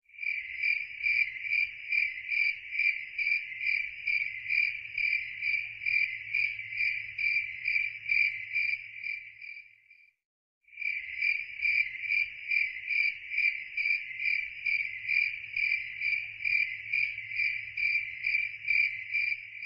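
A cricket chirping steadily in a high, even pulse, about two chirps a second. It fades out and stops about halfway through, then starts again a moment later.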